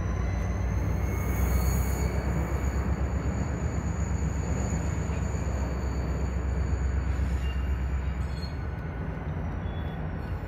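Diesel locomotives of the Susquehanna (NYSW) moving slowly, a low engine rumble with a thin, high wheel squeal over it. The squeal rises a little in pitch at the start and sinks near the end as the rumble eases.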